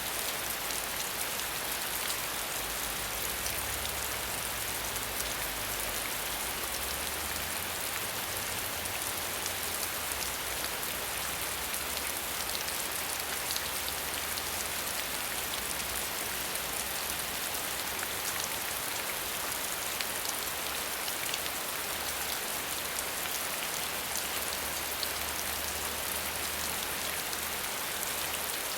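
Steady heavy rain falling on a surface, a dense hiss with many fine drop patters.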